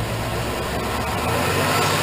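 A 6.0 Vortec V8 in a 2001 Chevrolet Suburban 2500 idling after a cold start, an engine whose idle the owner finds rough and uneven since a cylinder-head rebuild. About a second in the low rumble thins and a steady rushing noise becomes the main sound.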